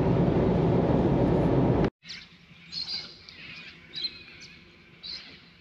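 Steady road and engine noise inside the cab of a moving Mitsubishi, which cuts off abruptly about two seconds in. Quiet bush follows, with a few short bird chirps.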